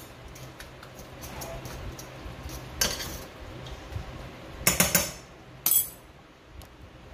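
A cooking utensil knocking and scraping against a stainless-steel skillet as ground beef is stirred, with a few sharp clanks, loudest about three and five seconds in.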